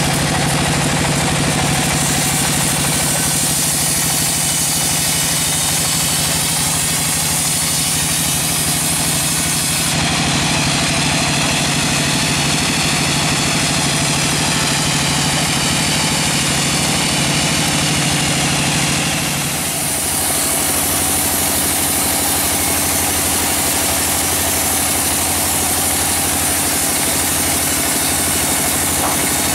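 Large log band sawmill running and sawing through a log: a loud, steady machine drone whose tone shifts abruptly twice.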